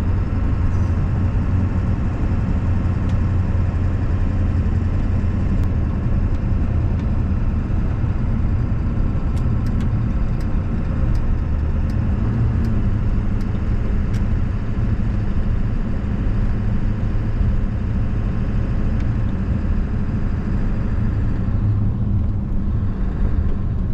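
1997 Ford F-350's 7.3-litre Power Stroke turbo-diesel V8 running steadily while the truck drives, heard from inside the cab as a constant low engine hum mixed with road noise.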